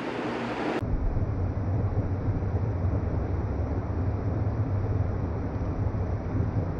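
Steady low rumbling background noise, like a vehicle or wind on the microphone, that starts suddenly about a second in.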